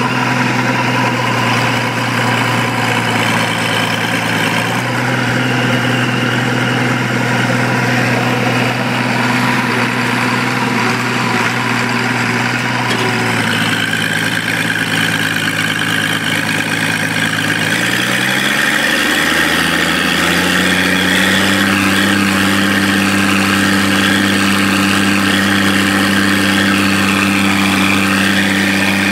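Allis-Chalmers 185 tractor engine working hard under load, pulling a disk harrow and freshly overhauled. It runs steadily, and its note shifts and settles at a new pitch about two-thirds of the way through.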